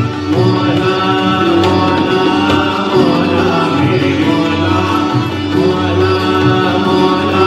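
A man singing a slow Sufi song with long, gliding held notes over a steady drone, with tabla strokes in the accompaniment.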